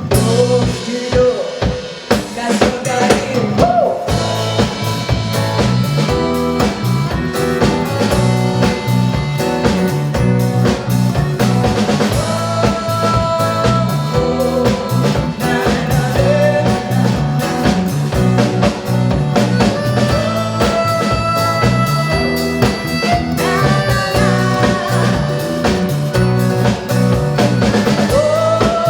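A live band playing an instrumental passage of a song: drum kit keeping a steady beat over bass guitar, guitar and bayan (button accordion), with a sustained melody line that bends in pitch.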